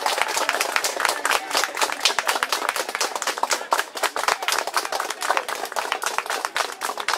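A small group of football supporters clapping their hands, many sharp claps close together, with voices shouting among them.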